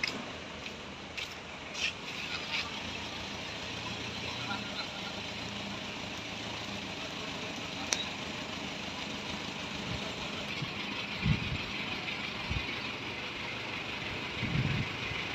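Truck engine running at a steady idle under a constant hiss, with a couple of dull thumps in the second half.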